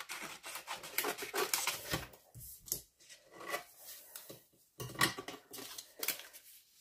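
Scissors snipping through a sheet of vellum, a quick run of short snips over the first two seconds. Then sparser crinkles of the stiff vellum being handled and light knocks as the scissors are put down on the cutting mat.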